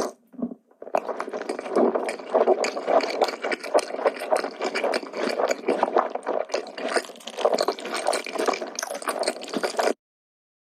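Close-miked eating sounds: a dense run of wet chewing and smacking. It cuts off suddenly near the end.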